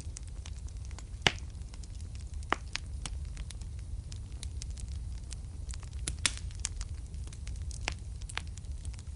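Wood fire burning in a fireplace: a steady low rumble of the flames with irregular sharp crackles and pops, a few louder pops among them.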